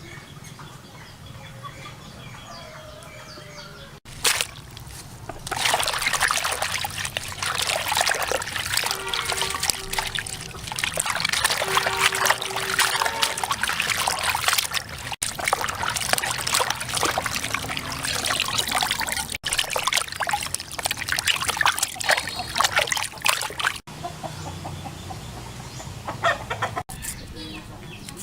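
Chickens clucking over the noisy sound of water trickling and splashing.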